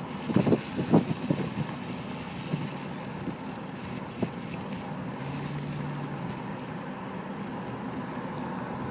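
Wind noise on the microphone over a steady outdoor rumble, with a few short knocks in the first second and a half and a single click about four seconds in.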